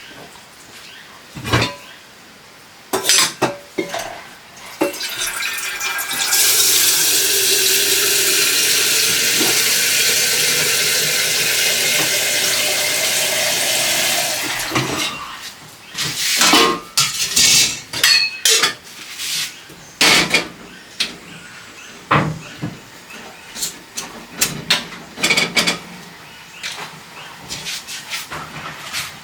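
Dishes and cutlery clinking and knocking, with water running steadily from a kitchen tap for about eight seconds in the middle.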